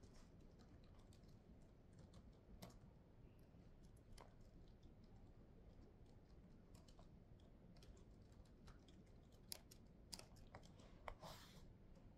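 Faint, irregular keystrokes on a laptop keyboard against quiet room noise, with a few sharper clicks near the end.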